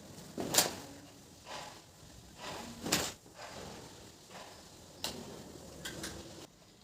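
Household objects being handled and set down while a bedroom is tidied: a run of separate knocks and clatters, the loudest about half a second in and near the three-second mark.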